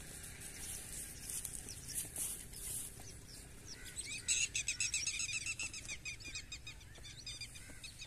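A flock of birds calling in a fast, dense run of short high chirps, starting about four seconds in and thinning out near the end, after a few seconds of faint hiss.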